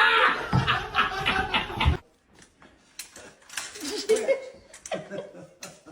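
A person laughing, cut off suddenly about two seconds in, followed by quieter scattered voice sounds.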